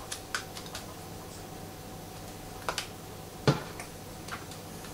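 Small plastic capsule-toy figure pieces clicking and tapping as they are handled, with one louder knock about three and a half seconds in.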